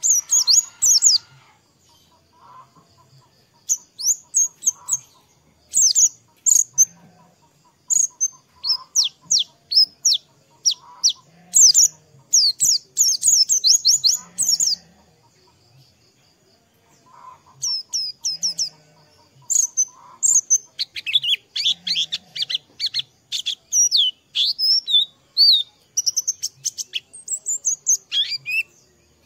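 A white-eye (pleci) singing: bursts of rapid, high, down-slurred chirps and twitters with short pauses between them. Over the last third the song runs into a longer, fuller, lower warble. It is the kind of white-eye song used as a lure (pancingan) to set other caged white-eyes singing.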